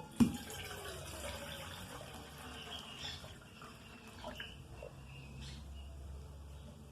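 Half a litre of water being poured into a small pot, a steady pour that ends about four and a half seconds in. It opens with a single knock.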